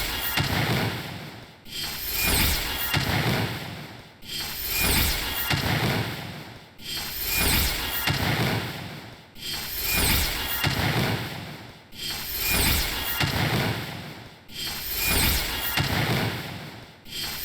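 A short rasping, scraping sound effect looped over and over, each repeat swelling and fading about every two and a half seconds.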